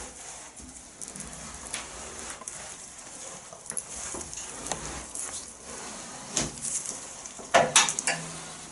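Old, brittle rear-window rubber trim on a classic Mini being pulled off by hand: irregular crackling, clicking and scraping as it breaks away, with a louder run of sharp cracks near the end.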